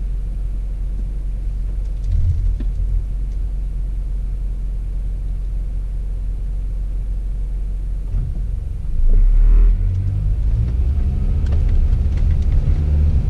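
Road and engine noise inside a moving Dodge Caliber's cabin: a steady low rumble that swells briefly about nine seconds in and runs a little louder near the end.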